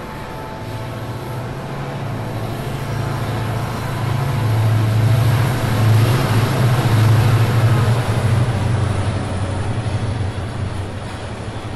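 Diesel-electric locomotive hauling a Mugunghwa passenger train past, its diesel engine droning low and steady. It grows louder to a peak about six seconds in, with the wheels rumbling on the rails, then eases off as the carriages roll by.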